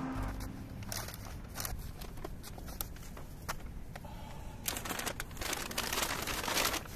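Brown paper takeout bags crinkling and rustling as they are carried and shifted in the arms, sparse at first and turning to a busy run of crackles about two-thirds of the way through.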